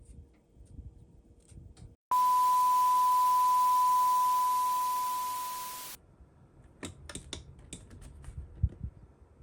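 A steady, loud electronic beep tone with a hiss behind it begins abruptly about two seconds in, fades over its last second or so and cuts off suddenly after about four seconds. A run of sharp clicks and knocks follows near the end.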